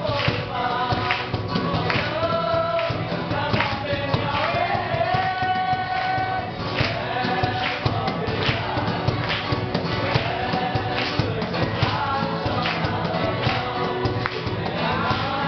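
Live acoustic music: male voices singing over an acoustic guitar, with a cajón beaten in a steady rhythm.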